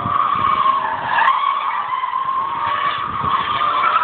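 A BMW's tyres squealing in one long, unbroken screech, its pitch sagging a little midway and rising again near the end.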